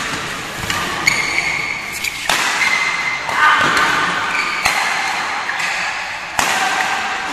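Badminton racquets striking a shuttlecock during a doubles rally: several sharp hits, one to two seconds apart, echoing in a large indoor hall.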